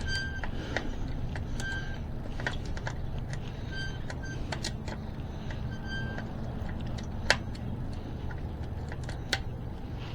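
Light scattered clicks and ticks from handling the spokes and spoke nipples of an e-bike wheel while checking them for looseness, over a low steady hum. A sharper click comes about seven seconds in and another near the end.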